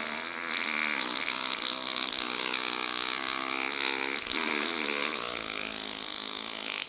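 A man imitating a long, continuous fart with his mouth: one unbroken buzzing raspberry blown through pursed lips, wavering in pitch.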